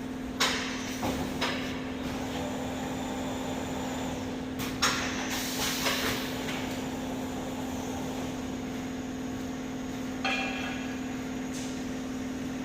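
Glass screen printing machine running with a steady hum, with a few sharp knocks and clunks about half a second in, around five to six seconds in, and again about ten seconds in.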